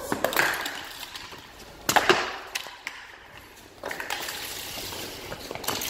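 A small object kicked about a tiled floor: sharp knocks about every two seconds, each followed by a short scrape.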